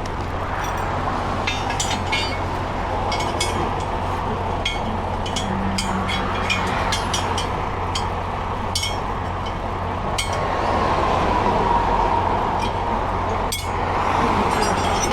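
Steady noise of heavy interstate traffic going by, with repeated short metallic clinks of a hand wrench being worked on a truck wheel.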